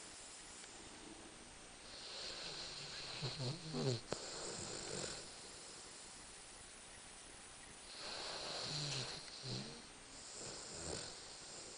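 Rhodesian Ridgeback dog snoring in its sleep: slow breaths a few seconds apart, each a hiss with a low rasp.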